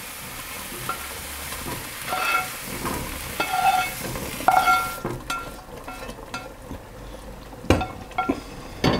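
Butter-fried mushrooms sizzling as they are scraped out of a hot frying pan into a stockpot with a metal slotted spatula, with scraping and small clicks of the spatula on the pan. The sizzle stops about halfway through, and the pan and spatula then clatter, with a sharp knock a little before the end.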